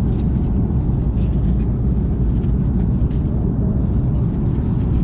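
Steady low roar of an airliner's cabin noise in flight, with a few faint clicks.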